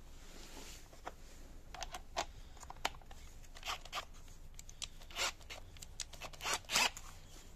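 Packaging being handled: a string of short, irregular rustles and scrapes, loudest near the end.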